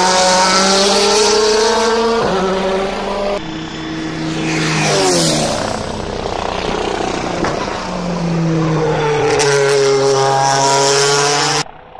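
DTM race cars' V8 engines running hard past the trackside. The engine note climbs through the gears and drops as cars brake and go by. The sound changes abruptly a few times and cuts off suddenly near the end.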